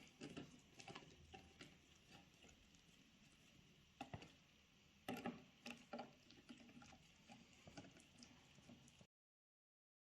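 Near silence with faint, scattered light clicks and taps, then dead silence near the end.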